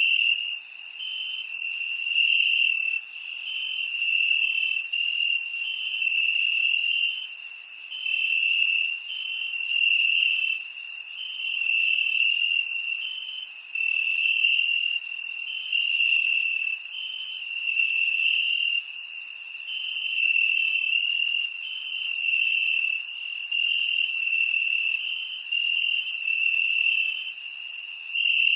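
Crickets chirping in a steady high trill that swells and fades about every two seconds.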